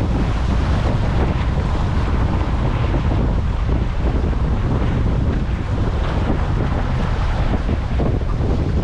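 Strong wind buffeting the microphone on an open boat, a steady low rumble with no break.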